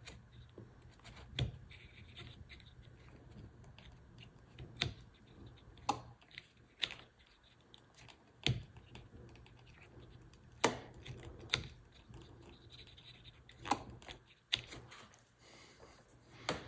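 N-scale snap-switch turnout machine firing from a capacitor discharge, with the controller's pushbutton being pressed: about ten sharp, separate clicks spaced a second or more apart, over a faint steady hum. Each click is the switch machine's solenoid throwing the points on the stored charge of a single capacitor.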